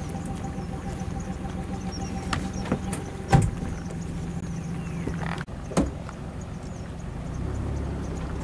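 Steady low mechanical hum, like an idling engine, with a few sharp cracks about two to three seconds in, the loudest just after three seconds, and another near six seconds. A low rumble rises near the end.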